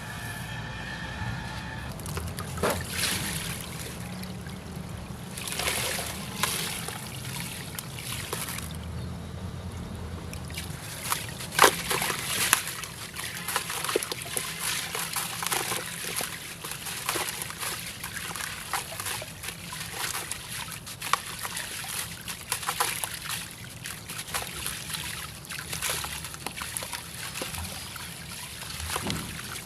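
Crumbly dry concrete pieces dipped in water: sloshing and trickling, with crackling, crunching crumbles that grow frequent about a third of the way in, the sharpest crunch near 12 seconds.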